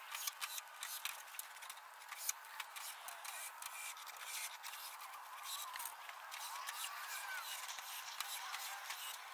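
Scattered light clicks, taps and scraping from hands handling metal gazebo roof parts and screws during assembly.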